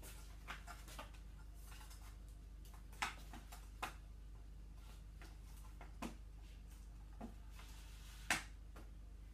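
Scattered small clicks and taps of cable connectors and plastic parts being handled and plugged in at the open back of an LCD TV, the sharpest about three seconds in and near the end, over a low steady hum.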